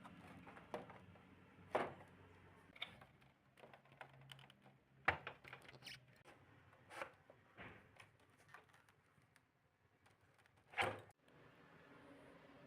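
Scattered clicks and knocks of plastic parts being handled as a Daikin inverter split air conditioner's indoor unit is taken apart to remove its blower wheel, with the loudest knock about five seconds in and a short clatter near the end.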